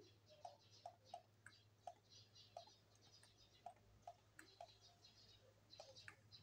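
Faint, irregular clicking of a computer mouse, about a dozen clicks at uneven intervals, over a low steady hum.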